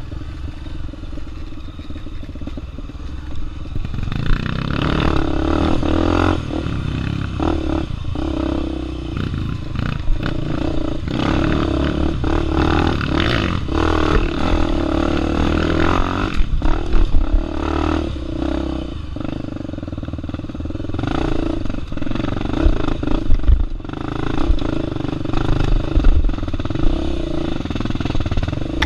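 Dirt bike engine running as the bike is ridden down a rough trail. It is quieter for the first few seconds, then louder and rising and falling with the throttle, with rattles and knocks from the bike over ruts and rocks.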